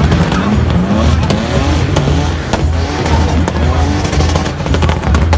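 BMW car's engine revving up and down again and again as it drifts through a cone course, with tyres squealing, over background music with a beat.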